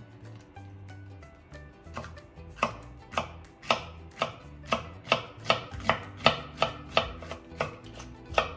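Chef's knife slicing green peppers into thin strips on a wooden cutting board. It starts about two seconds in as a steady run of sharp knocks of the blade on the board, quickening to about two to three a second.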